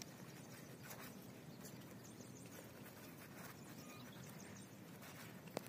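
Near silence: faint rustling and a few soft clicks as hands knead a ball of flour-dough fishing bait over a sheet of paper, with a slightly sharper click near the end.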